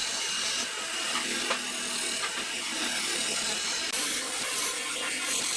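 A tool working wood with a steady noise, with a single sharp click about one and a half seconds in.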